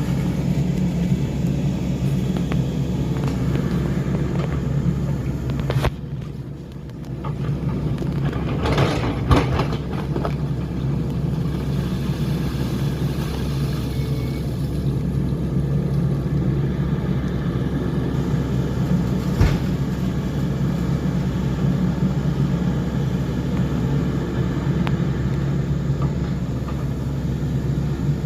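Heavy earthmoving machinery engine running steadily, with a short drop in level about six seconds in and a few knocks around nine to ten seconds in.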